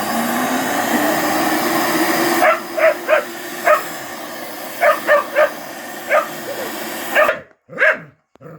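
Vacuum cleaner motor running steadily while a dog barks at it, about nine short barks from two and a half seconds in. The motor cuts off suddenly near the end, followed by one more bark.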